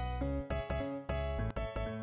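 Background music with a steady beat and a bass line, its pitched notes changing about twice a second.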